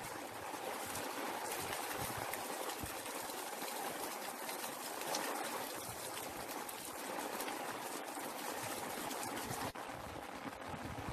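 Steady rain falling: a dense, even hiss of drops with many separate drop ticks.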